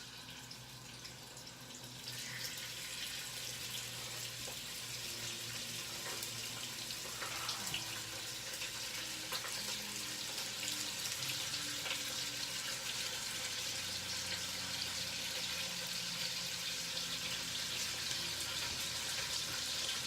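Chicken pieces sizzling as they are laid skin side down in hot fat in a Dutch oven to brown, a steady crackling hiss that grows louder as more pieces go in.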